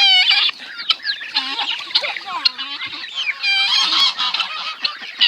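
A flock of geese honking, many calls overlapping, with the loudest calls right at the start and again a few seconds in.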